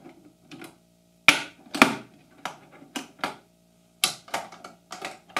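Sharp metallic clicks, about ten in a row at uneven intervals, as a small magnet snaps onto metal bench-dog pins and pulls them up out of the holes in a workbench top.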